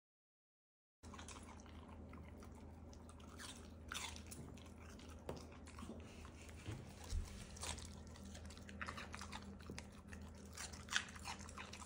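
A dog chewing and crunching a chunk of raw vegetable: faint, irregular crunches and clicks over a low steady hum, starting about a second in.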